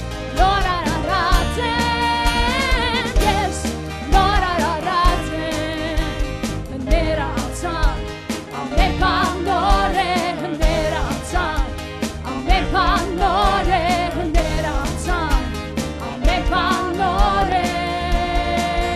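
Worship song playing: a singer's wavering, vibrato-laden melody over a band with a steady beat and low bass notes.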